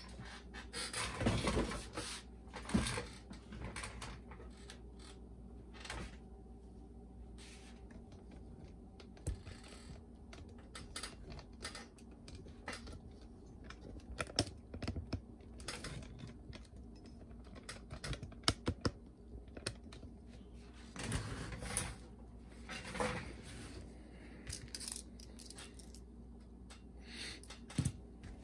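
Scattered light clicks and taps from hand tools and small parts being handled while a boombox cassette deck is taken apart.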